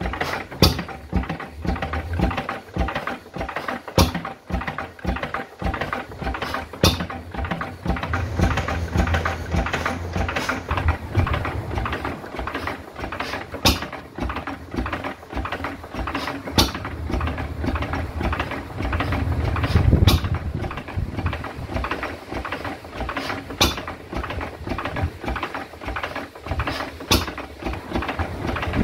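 Lister 3 hp side-valve hit-and-miss stationary engine running on its governor. It makes a steady fast clatter of valve gear and mechanism, with a sharper crack about every three seconds and spells of heavier low rumble.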